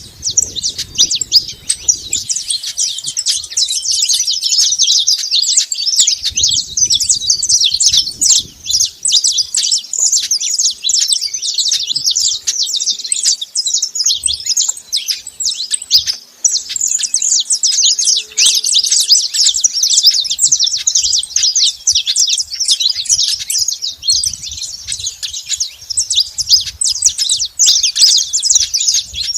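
Saffron finches chirping and singing in a dense, unbroken stream of high, quick notes.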